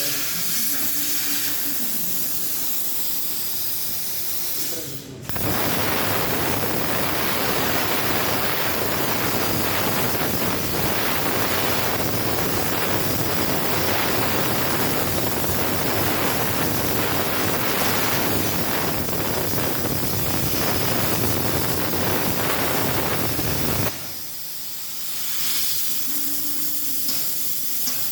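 SteelTailor Dragon III CNC plasma cutter: the torch's air hisses, then about five seconds in the arc strikes and cuts with a loud, steady hiss for roughly nineteen seconds before it stops abruptly, leaving only the air flow hissing.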